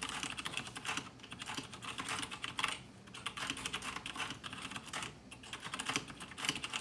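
Typing on a 1stPlayer Steampunk mechanical keyboard, its G-switch Black linear switches (Cherry MX Black clones) plate-mounted on a metal plate: quick, continuous keystroke clatter, with short pauses about three and five seconds in.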